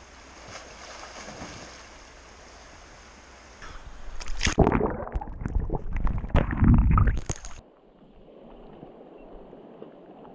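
Soft flowing river water, then about four seconds in loud sloshing, splashing and bubbling as the camera is plunged under the surface of the river pool. It cuts off abruptly to a quieter, muffled water sound.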